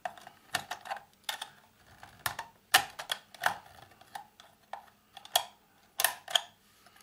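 Metal side-cutting pliers clicking and scraping against small steel locking washers and screws inside a Bakelite antenna rotor housing as they are pried loose. The clicks come irregularly, with a few louder snaps in the second half.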